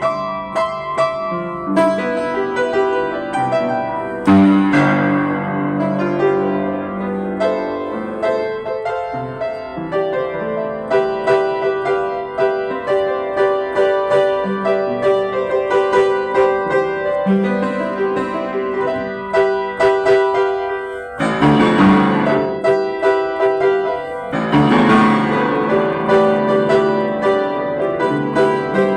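Yamaha JU109 upright piano played solo, a melody over held chords with struck notes ringing on, and two dense flurries of many notes about three-quarters of the way through.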